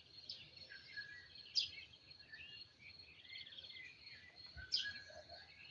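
Songbirds singing: a mix of chirps and short fast trills, with a few sharp falling calls, the loudest about a second and a half in and near the end. A faint steady high tone runs under them.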